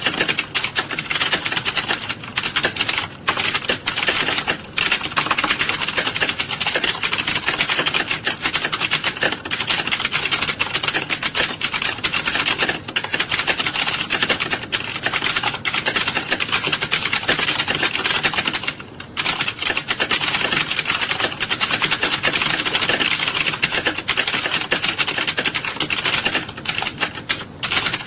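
Many computer keyboards being typed on at once in a typing class: a dense, continuous clatter of key clicks, thinning briefly a few times.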